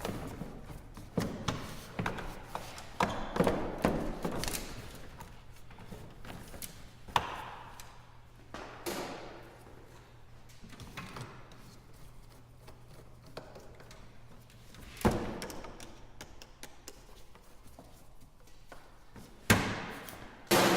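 Irregular knocks, taps and clunks of hand work in an engine bay: the air intake ducting being fitted back onto the engine, with a couple of sharper knocks late on.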